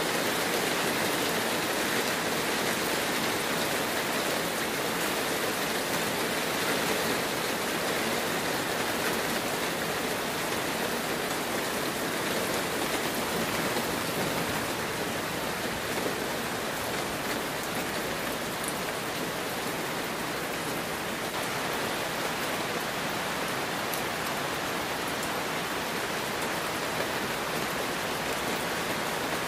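Heavy rain falling steadily, a dense, even hiss with no let-up.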